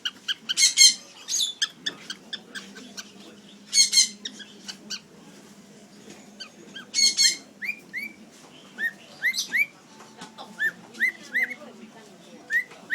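Cockatiel calling: three short harsh screeches spread through the first half, then a run of short rising whistled chirps repeating about once a second.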